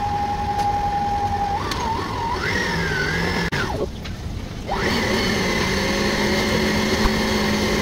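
Electric stand mixer running as it beats eggs into cream cheese batter, its motor whine steady at first, then wavering and shifting in pitch about two seconds in. After a brief drop in the higher sound about halfway through, it settles into a new steady whine and hum.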